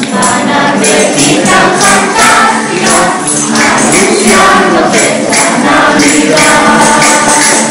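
Children and adults singing a Spanish Christmas carol (villancico) together, accompanied by a strummed classical guitar and jingling percussion keeping the beat.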